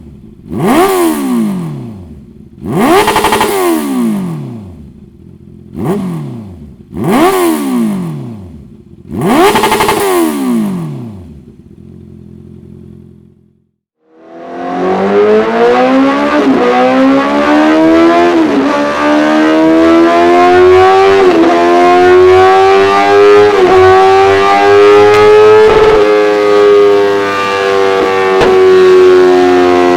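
Honda CBR 650R's inline-four engine through a Dominator full exhaust system, blipped in five sharp revs that each drop back to idle. After a short break it runs continuously under load, its pitch climbing slowly with a brief dip every two to three seconds.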